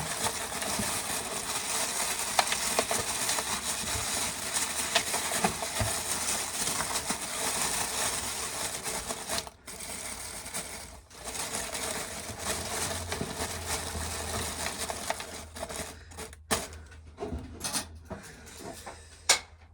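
Corn sheller running, stripping kernels off ear corn with a dense, continuous rattle of clicking kernels. It breaks off briefly twice midway, stops about three-quarters of the way through, and a few loose clicks follow.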